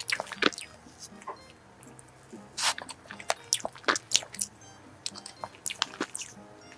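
Close-miked chewing of soft cake: irregular wet mouth smacks and clicks, with faint background music underneath.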